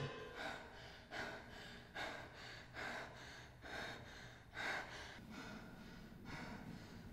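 A woman breathing hard and unevenly: about eight short, faint breaths, roughly one a second.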